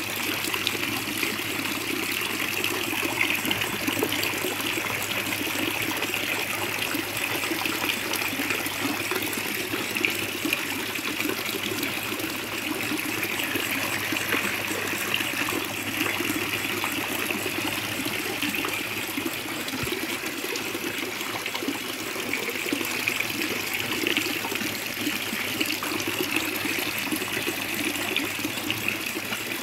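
Water trickling and splashing steadily in a koi carp pond.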